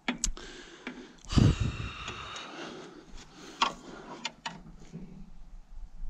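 A steel bar clinking and scraping against the roller chain and sprocket of a Welger baler's drive as it is levered to check chain tension and play, with a heavier knock about a second and a half in and light clicks scattered after.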